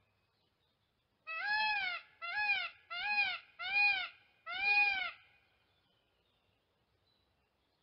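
Peafowl calling five times in quick succession, starting about a second in. Each loud, high call rises and falls in pitch, and the last is slightly longer.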